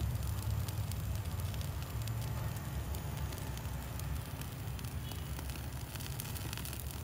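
Handheld gas torch flame running with a steady low rumble while shimpaku juniper foliage crackles with many small pops as it burns.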